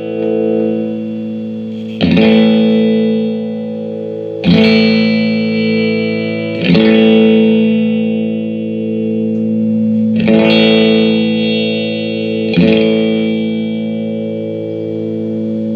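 Electric guitar played through a Mesa Boogie Dual Caliber DC-3 tube amplifier: five chords struck a couple of seconds apart, each left to ring out, as a sound test of the amp after a repair.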